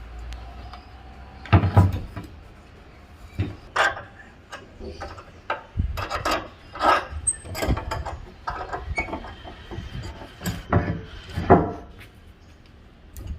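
Wood knocking and scraping at irregular moments, about a dozen sharp knocks with short rubs between them; no saw is running.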